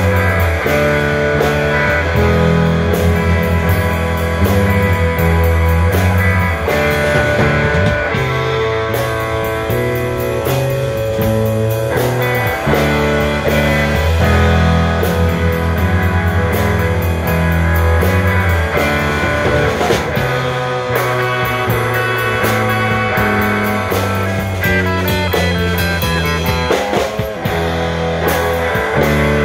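A rock band playing live: electric guitars over a bass guitar line and a drum kit, steady and loud.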